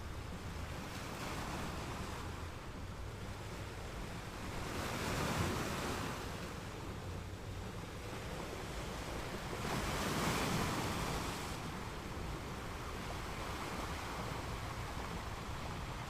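Ocean surf: a steady wash of waves, with two louder waves breaking and surging about five and ten seconds in.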